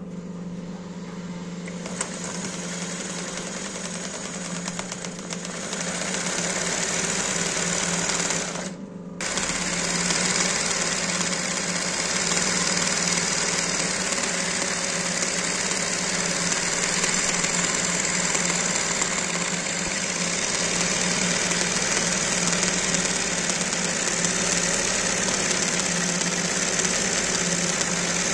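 Industrial golabetooni (chain-stitch embroidery) machine running steadily as fabric is stitched freehand in a hoop, with a constant motor hum under the needle's rapid running. It stops for under a second about eight and a half seconds in, then runs on.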